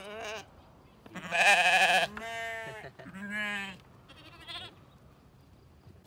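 Sheep bleating, about five bleats in quick succession; the loudest and longest is a wavering bleat about a second in.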